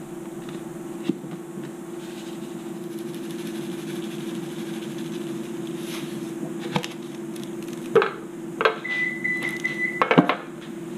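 Kitchen handling sounds over a steady low room hum: a few light knocks and clicks as seasoning containers are picked up, shaken over a mixing bowl and set down. A thin, steady high tone sounds for about a second near the end.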